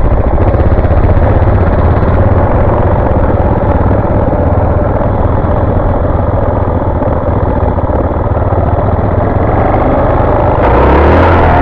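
Suzuki DR-Z400's single-cylinder four-stroke engine running steadily as the bike rides along a dirt track, mixed with rushing noise on the microphone. About ten and a half seconds in, the engine gets louder and brighter as it revs up.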